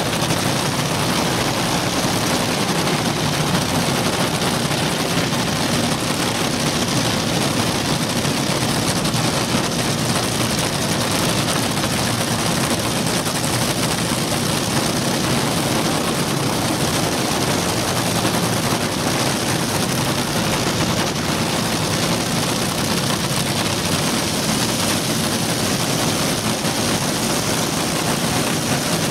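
Two nitro-burning fuel altered engines idling at the starting line, a loud, steady running sound.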